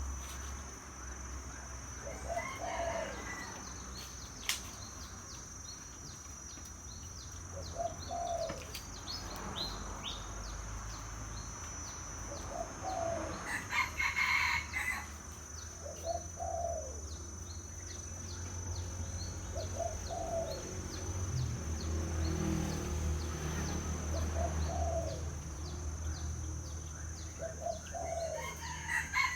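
Spotted dove (terkukur) cooing: short, low coos repeated about every three seconds. Louder, higher calls from another bird come about halfway and again near the end, over a steady high-pitched whine.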